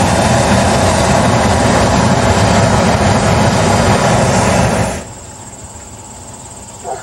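Hot air balloon's propane burner firing overhead in one long, steady blast that cuts off sharply about five seconds in.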